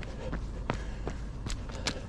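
Running footsteps of a jogger carrying the camera, about three strides a second, over a steady low rumble. The two strikes near the end are sharper and brighter.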